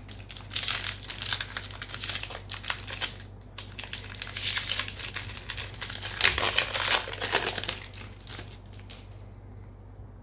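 Foil trading-card booster pack wrapper crinkling in the hands as the pack is opened: a dense crackle of quick snaps that dies away about a second before the end.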